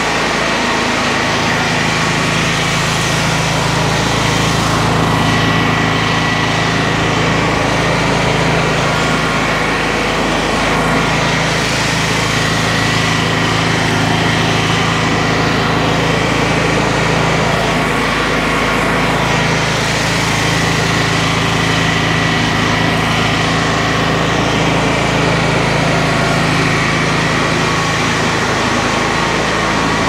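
Board edger running at a steady pitch while a board is fed through and its edges are sawn off.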